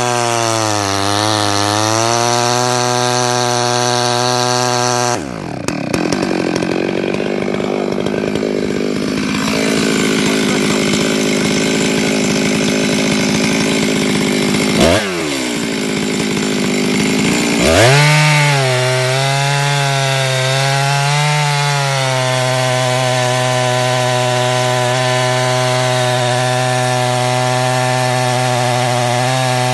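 Stihl two-stroke chainsaw running at full throttle while ripping timber lengthways, its engine note sagging and wavering under the load of the cut. Midway the revs drop sharply and climb straight back, and the saw then cuts steadily.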